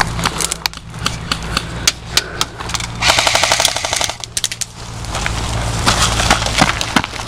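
Airsoft guns firing: scattered sharp shots throughout, with a full-auto burst from an electric airsoft gun about three seconds in that lasts about a second.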